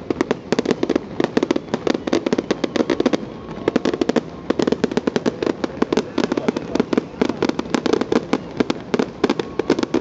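Fireworks bursting: a dense, rapid run of sharp cracks and pops, several a second, with a short lull about four seconds in.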